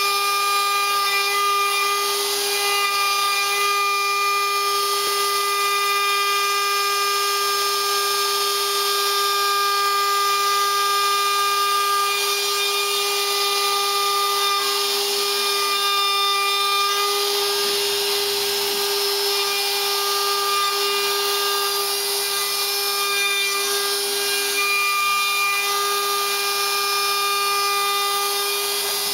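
A DeWalt compact router, serving as the spindle of a CNC machine, runs at a steady high whine while its bit carves select pine, with the rasp of the cut underneath. The pitch and level hold steady throughout.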